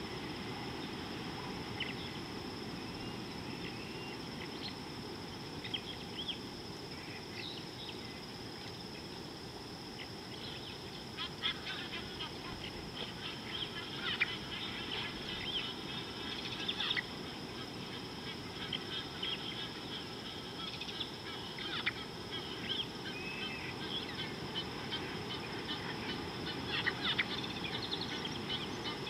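Wild birds chirping and calling, a busy mix of short calls and trills that thickens about ten seconds in, over a steady high-pitched hum and a low outdoor background hiss.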